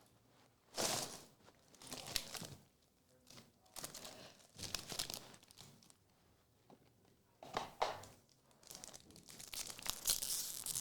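Foil trading-card pack wrappers crinkling and tearing as packs are opened and cards handled, in several short bursts with quiet gaps between them.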